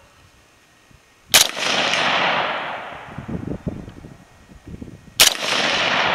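Two shots from a Bushmaster XM-15 AR-15 rifle firing .223/5.56, about four seconds apart, each followed by a long echo that dies away over a second or two.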